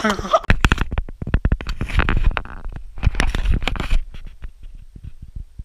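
Handling noise on the camera's microphone: irregular rubbing, knocking and rumbling as it is moved about. Just before it there is a short voiced sound.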